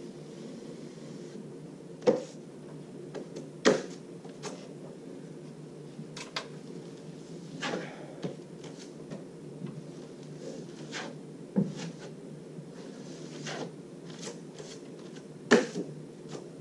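Steel plastering trowel knocking and scraping against a hawk and over fresh joint compound on plasterboard: scattered clicks and short scrapes, four of them sharper knocks, over a steady low hum.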